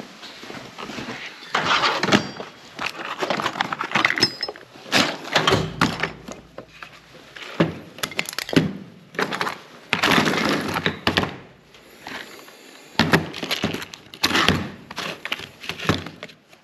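Irregular clattering, knocks and scraping of tools and metal parts being handled, in short bursts with pauses between.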